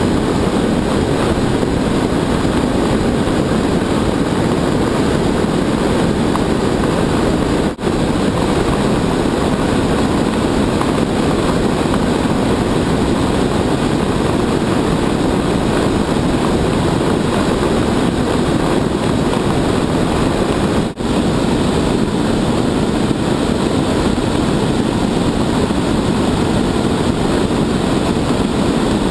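Steady rushing wind noise on a GoPro camera riding in a cooler beneath a high-altitude weather balloon, deep and even, cutting out for an instant twice.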